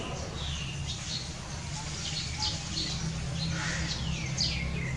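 Small birds chirping: short, high notes that fall in pitch, repeated several times, over a steady low rumble.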